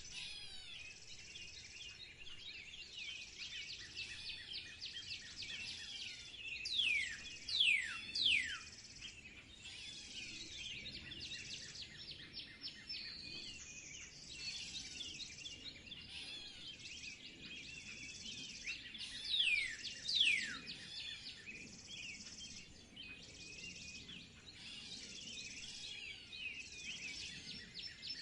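Springtime bird chorus: many birds chirping and twittering without a break. Twice, a louder bird gives a pair of clear whistles that slide steeply downward, about seven seconds in and about twenty seconds in.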